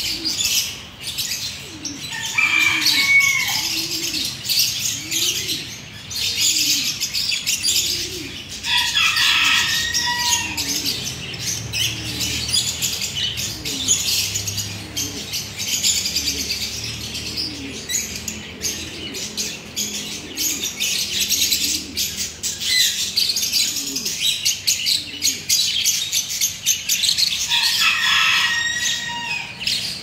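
Lovebirds chattering: continuous high twittering, with a few louder, sharp calls that drop in pitch about two seconds in, near ten seconds and near the end.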